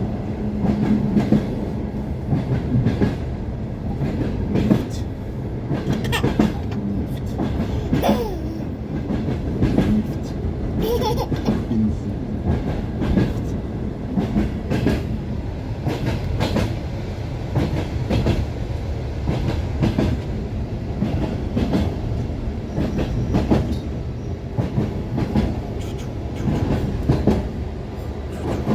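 Passenger train wheels clattering over the rail joints while the train runs: a steady rumble with repeated clacks, and brief squeaks about 8 and 11 seconds in.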